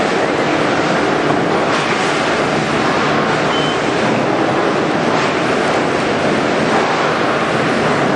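Vertical form-fill-seal packaging machine running, a steady dense mechanical rush with a faint irregular rattle and no pauses.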